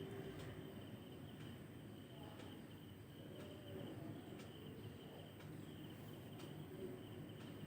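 Faint, steady high insect chirring over a low background hiss.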